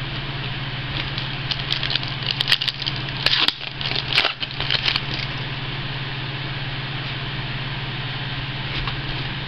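Foil trading-card pack wrapper being torn open and crinkled, a cluster of crackles between about two and five seconds in, over a steady low hum.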